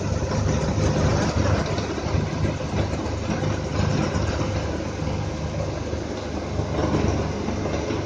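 Combine harvester running steadily at work, a loud, dense mechanical drone, while its unloading auger pours threshed wheat into a tractor trolley.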